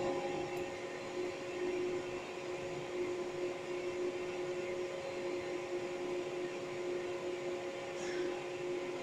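Printronix P8220 line matrix printer running while it initializes after power-on: its cooling fan gives a steady hum with two constant tones over an even airy noise.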